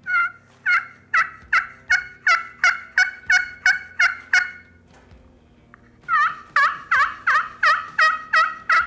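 Pot-style friction turkey call worked with a wooden striker, imitating a hen turkey's yelp: two runs of two-tone notes, each breaking from high to low, about a dozen in the first run and eight more after a short pause. The yelp is a hen's call meaning 'I'm over here, come here'.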